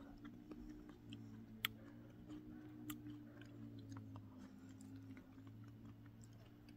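Faint chewing of a mouthful of fresh tomato, with scattered soft wet clicks, over a steady low hum.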